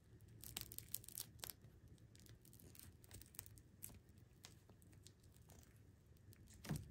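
Faint, sticky crackling and tearing of a gummy eyeball candy being squeezed and pulled apart by hand. A cluster of small crackles comes about half a second to a second and a half in, and a single louder tap comes near the end.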